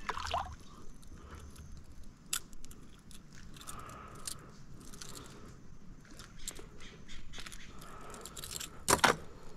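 Scattered light clicks, scrapes and rattles of fishing tackle being handled in a kayak, with a sharper knock near the end.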